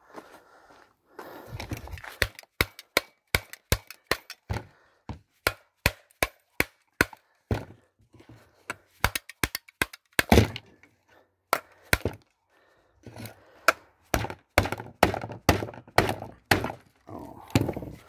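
Hammer blows on the motor unit of a Philips Performer Pro vacuum cleaner, knocking it apart for scrap: a run of sharp strikes about two to three a second, then scattered blows, then another quick run near the end.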